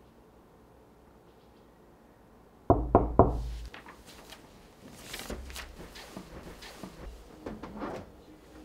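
Three quick, loud knocks on a front door about three seconds in, followed by quieter, irregular movement sounds.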